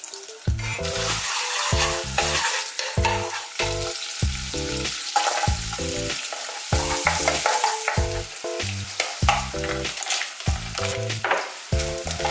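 Sliced garlic, then sliced almonds, sizzling in hot oil from melted mayonnaise in a nonstick wok, stirred with a wooden spatula; a continuous frying hiss.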